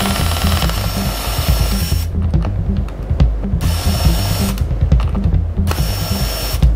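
Small electric screwdriver whirring in three short runs, the first lasting about two seconds and the others about a second each, as it drives the laptop's screws. Background music with a steady drum beat plays throughout.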